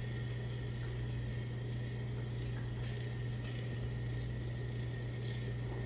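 Powered-on 1993 Macintosh Quadra 610 running steadily: a low hum from its fan and spinning hard drive with a thin, steady high whine over it, which the owner judges not in good shape. No startup chime sounds, a sign the machine is not booting.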